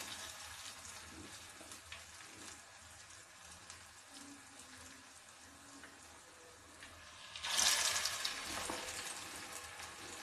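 Chow pakoda (noodle-and-onion fritter) mixture sizzling in hot oil in a nonstick frying pan. About seven and a half seconds in, a second fritter dropped into the oil sets off a sudden louder burst of sizzling that slowly fades.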